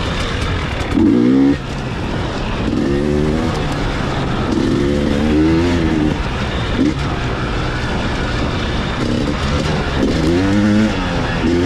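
Dirt bike engine revving up and down with the throttle, in repeated rising and falling surges every second or two as it is ridden along trail.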